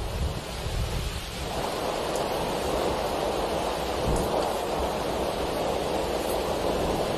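Summer storm over open marshland: strong wind gusts rumble on the microphone. About a second and a half in, the sound gives way to a steady rushing of wind and rain.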